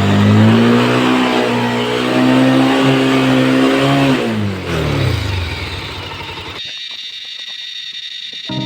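Motorcycle engine revving up under load and holding its revs for a few seconds, then the revs falling away about four seconds in. Near the end the engine sound gives way to a thin hiss.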